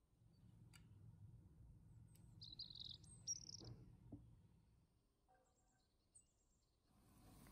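Faint songbird chirps, a short cluster of high chirps about halfway through, over a low background rumble.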